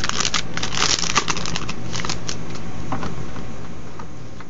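The crinkly wrapper of a Magic: The Gathering 2012 Core Set booster pack crackling as it is pulled open by hand. The crackling is busiest in the first second and a half and thins out to a few scattered crackles by about three seconds in.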